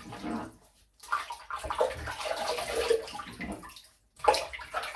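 Water splashing in a sink as the face is rinsed after a straight-razor shave, in uneven bouts with short pauses about a second in and again near the end.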